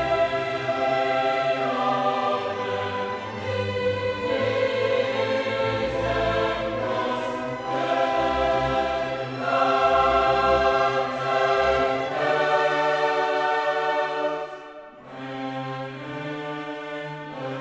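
Background music: sustained choral and orchestral chords that change every second or two, dropping briefly in level near the end.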